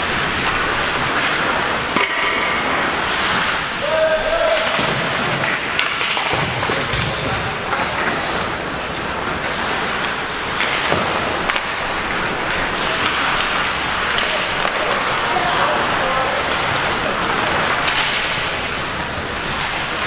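Ice hockey in play: skate blades scraping and carving on the ice, with sharp clacks of sticks and puck scattered throughout.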